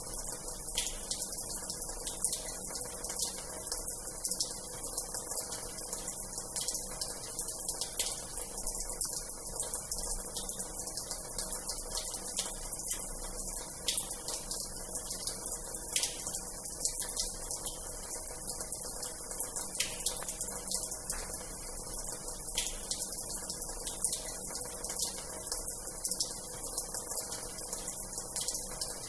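Water running steadily from the tap of an old washhouse into its basin: a continuous hiss with many small splashes throughout.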